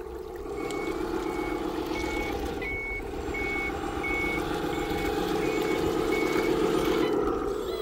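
Reversing beeper of a 1/14-scale RC Volvo A40G articulated dump truck, about ten short, even beeps at roughly one and a half a second, over the steady drone of its drive.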